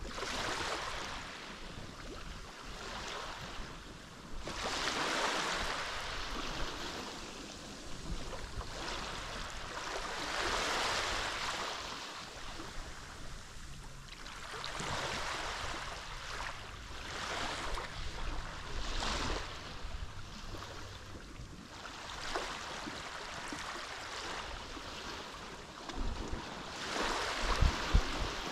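Small Mediterranean waves breaking and washing up the shore, each wash swelling and fading every few seconds. Near the end there are a few low gusts of wind on the microphone.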